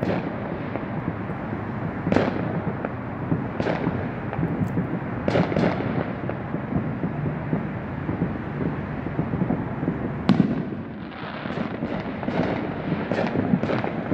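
Fireworks going off around the neighbourhood: single bangs every second or two over a constant din of more distant ones, then a quick run of bangs near the end. These are consumer fireworks like those sold at Fourth of July stands.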